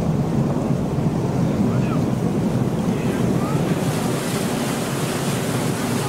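Tour boat's engine running steadily with a low hum under a wash of water and wind noise.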